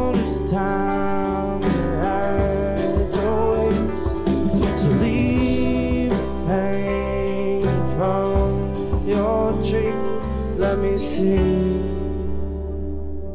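Live Americana band playing: strummed acoustic guitar, electric guitar, bass, drums and keyboard. Near the end the drums and cymbals stop and the chords ring on.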